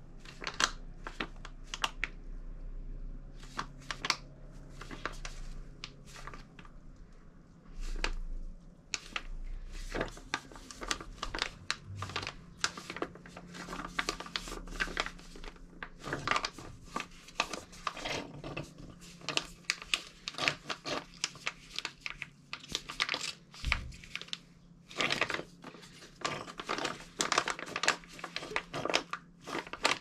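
Plastic pouch of Muc-Off tubeless sealant being squeezed by hand to empty it through the tyre valve, crinkling in many irregular crackles.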